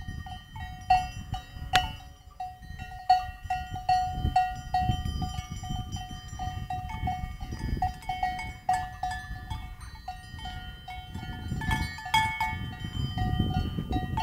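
Several cowbells on grazing cattle clanking irregularly, each clank ringing on at its own pitch, over a low, unsteady rumble.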